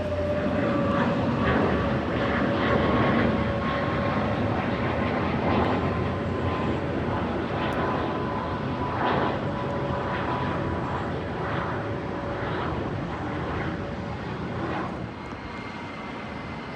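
Jet airliner engines passing: dense engine noise with a steady whine that slowly drops in pitch, fading a little near the end.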